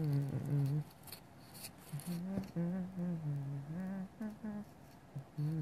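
A man humming with his lips closed in a low voice, a few short wandering phrases with brief gaps between them.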